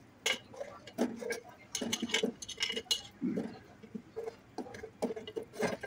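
Steel kitchenware clinking: a utensil knocking against a stainless-steel kadhai and a steel plate as fried gulab jamuns are scooped out of the oil, a series of light, irregular clinks.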